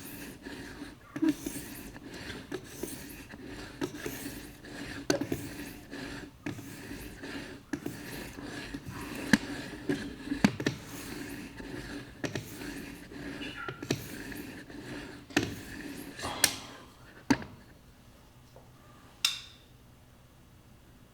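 A 1000-grit whetstone on a guided, Edge Pro-style sharpener scraping along a knife edge in repeated strokes, stopping about three-quarters of the way through. A brief high ring follows a couple of seconds later.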